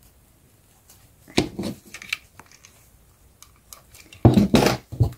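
Handling noise on a tabletop: satin ribbon petals rustled and small objects knocked or set down. It comes in two short clusters, about a second and a half in and again near the end, the second the louder.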